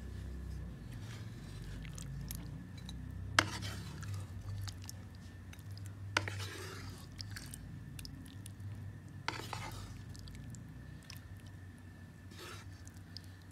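A metal spoon scraping and knocking in a karahi of cooked chicken four times, over a low steady hum.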